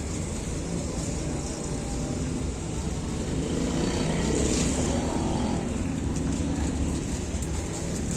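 Steady roadside traffic noise of engines and passing vehicles, swelling a little as one passes about halfway through.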